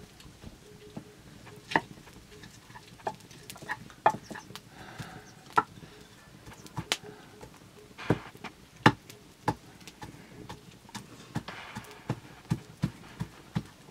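Wooden pestle pounding and mashing soft food in an aluminium bowl: irregular knocks, roughly one to two a second, a few louder than the rest.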